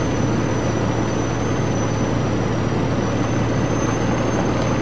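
A vehicle driving along a gravel road: a steady low engine drone mixed with an even rush of tyre and road noise.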